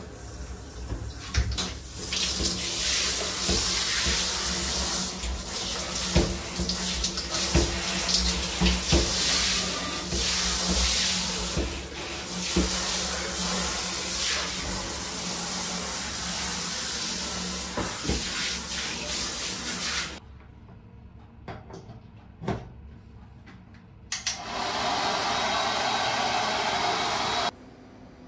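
Hand-held shower running, a steady hiss of water spray hitting the floor and walls of a small shower booth. It stops about twenty seconds in; a shorter burst of rushing noise follows near the end and cuts off suddenly.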